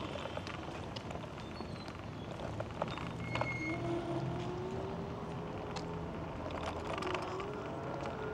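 A small vehicle's motor whining steadily, its pitch slowly rising and dipping with speed, over city street noise. The whine comes back about three seconds in, and scattered light clicks and knocks run through.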